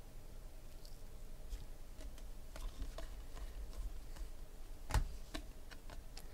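Football trading cards handled and flipped through by hand: soft, scattered clicks and taps as the cards slide and knock against each other, with one sharper tap about five seconds in.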